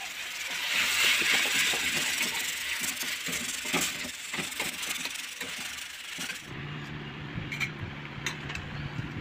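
Rice frying in a wok on a gas stove: a steady hissing sizzle with the clink and scrape of a spatula against the pan. About six and a half seconds in, this gives way to a steady low hum with a few clinks of a spoon on a steel plate.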